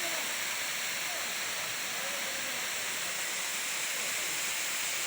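Ham Ham waterfall, a tall forest waterfall, pouring steadily, heard as a constant, even hiss of falling water.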